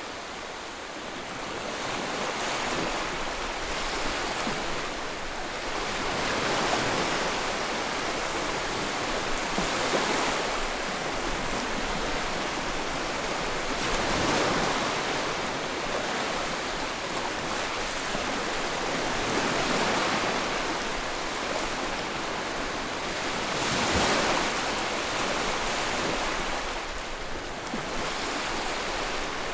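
Ocean waves breaking and washing on the shore, swelling every four to six seconds over a steady rush of surf.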